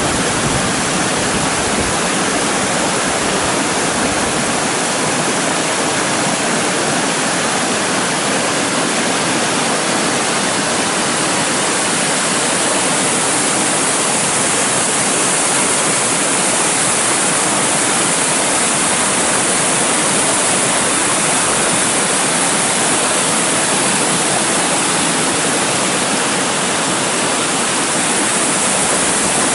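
Rain-swollen rambla torrent rushing and splashing over rocks, a steady loud roar of white water. In the middle stretch it grows brighter and hissier where the water pours over a stone weir as a small waterfall.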